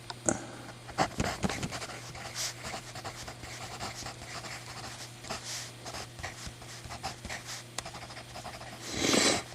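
Scattered clicks and small scratchy handling noises from a vintage Ritepoint mechanical pencil being handled, with a loud sniff near the end.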